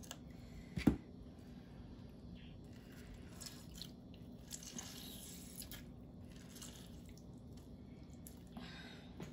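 Faint wet squishing as halved lemons are squeezed by hand over pork belly in a stainless steel bowl, with a single sharp knock about a second in.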